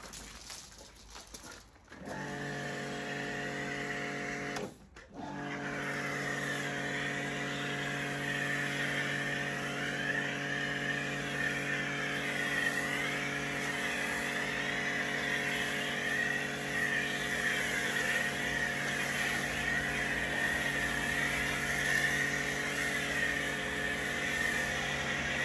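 Kärcher K4 pressure washer's electric motor and pump running with the hiss of spray from the trigger gun. It starts about two seconds in, cuts out for a moment about five seconds in as the gun's trigger is let go, then runs on steadily.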